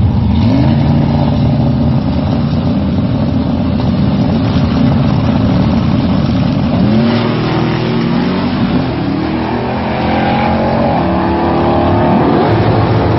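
Drag car's engine running at the starting line, then launching about seven seconds in and accelerating hard away down the strip. The engine note rises and drops back several times as its rebuilt transmission shifts through the gears.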